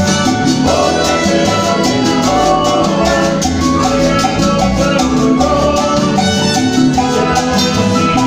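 Live Latin tropical dance band playing loudly through a PA, with keyboard, timbales and a metal güiro scraper keeping a steady, driving beat over the bass.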